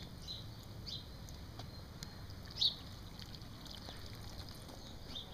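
Small birds chirping now and then, a few short high chirps with the loudest about two and a half seconds in, over a steady low background rumble.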